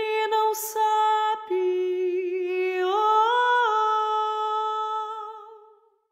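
A woman's voice singing alone, unaccompanied, in long sustained notes. The note steps down about a second and a half in, swells up briefly around the middle, settles back, and fades out near the end.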